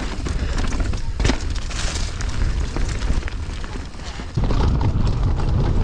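Mountain bike running down a rough, rocky downhill trail: tyres crunching over rocks and the bike rattling, with many small knocks. Wind buffets the microphone throughout and gets louder about four seconds in.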